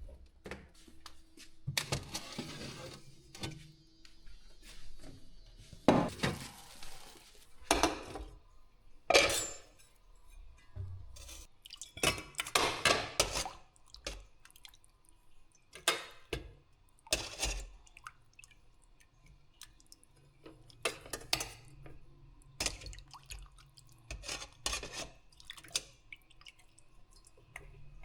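Dishes, pots and metal utensils clinking and knocking on and off while food is prepared, with a few short bursts of rustling or scraping between the clinks.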